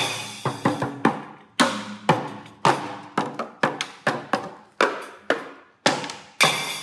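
Small toy drum kit with a cymbal, struck with drumsticks at an uneven, halting pace by a young monkey whose hands are being guided. Each hit rings briefly, and two hits, one at the start and one near the end, carry a longer, brighter ring.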